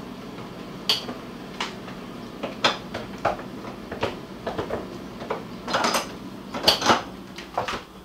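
Refrigerator freezer door being lifted back onto its hinges: a series of sharp knocks and clinks as the door bumps the cabinet and the bottles and containers on its door shelves rattle, loudest near the end.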